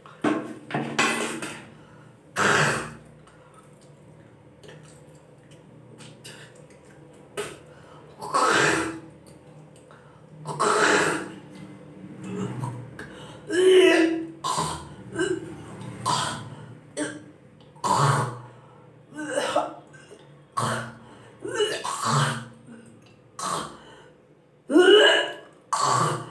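A woman hawking and retching: a string of loud, short throat-clearing and gagging sounds from deep in the throat, a second or two apart, as she brings up saliva to spit. After the first three there is a lull of several seconds, then they come thick and fast.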